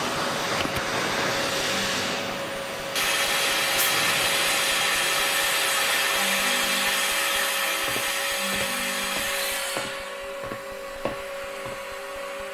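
Victorian steam beam engine running: a steady hiss of steam with a constant hum through it, the hiss growing louder about three seconds in and falling away near the end, with light mechanical clicks in the last few seconds.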